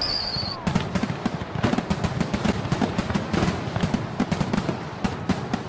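Fireworks going off: a dense, irregular run of sharp crackles and pops over low thuds, with a falling whistle that fades within the first second.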